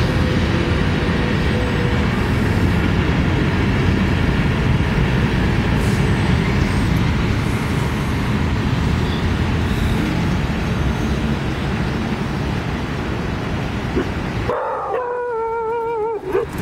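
A steady low rumble runs until it cuts off about three seconds from the end. A dog then gives a long, wavering, high-pitched whine.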